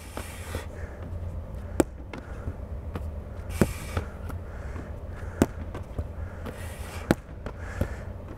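A soccer ball thrown against a padded wall and caught in goalkeeper gloves, over and over: sharp single thuds roughly every two seconds, with brief rustling between some of them and a steady low hum underneath.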